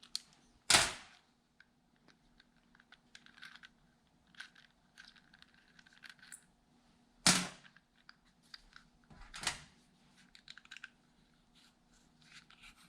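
Small metal clicks and clinks of two little wrenches and a butane soldering iron's parts being handled while the tip is unscrewed, with three louder knocks about a second in, past seven seconds and past nine seconds, over a faint steady hum.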